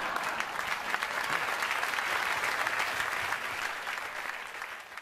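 Studio audience applauding, a dense steady clapping that dies away over the last second or two.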